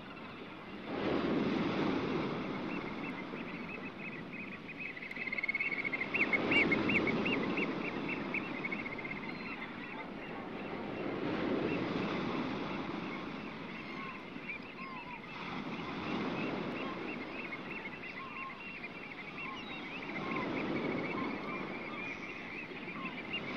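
Surf washing in and out, swelling about every five seconds, with a high, fast trilling chirp over it: a summer beach ambience.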